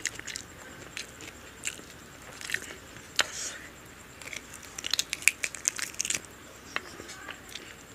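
Close-miked chewing and biting of a handful of mutton biryani eaten by hand: wet mouth clicks and crunchy bites, in a quick run about five seconds in.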